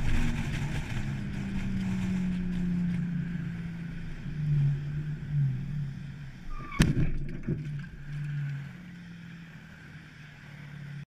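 Car engine and road noise heard from inside a moving car. About seven seconds in there is one sharp crash, followed by a few smaller knocks, as the car rear-ends the sedan ahead. The engine keeps running more quietly afterwards.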